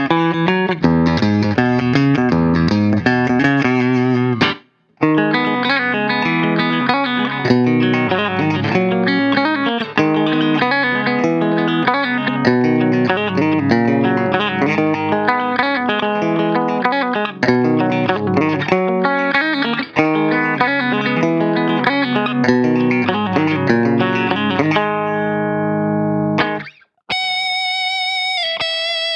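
Ibanez RC720 Premium electric guitar with Core-Tone humbuckers played through an amp: a run of chords and riffs with a short break about five seconds in. Near the end a chord rings out, then after a brief gap the guitar plays single notes with a brighter tone.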